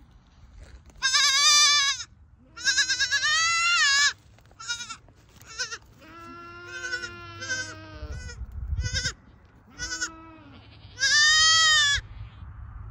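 Baby goat kid bleating over and over, calling for its mother: three long, loud cries, each a second or more, with shorter, softer bleats between them.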